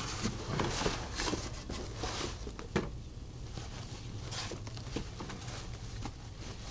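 Bubble wrap and plastic wrapping being pulled apart and handled, an irregular crinkling and rustling that is busiest in the first few seconds, with one sharp crackle about midway.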